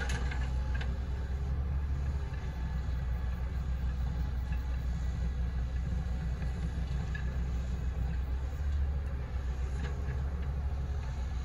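Hitachi Zaxis 110 hydraulic excavator's diesel engine running steadily, a low even rumble, as the machine lifts and swings its bucket while digging a trench.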